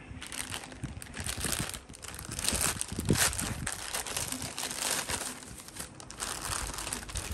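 Packaging crinkling and rustling as it is handled and opened, in irregular spells that come and go.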